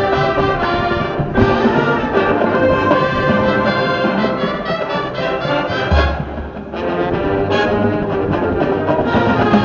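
High school marching band playing loud sustained brass chords. Low drums hit about six seconds in, the sound drops briefly, and the full brass comes back in.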